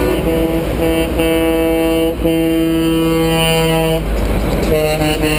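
Semi-truck air horns blowing as tractor-trailers pass: a few short blasts, then one long blast of nearly two seconds, and after a short break another horn starts near the end. Diesel engines and tyres rumble underneath.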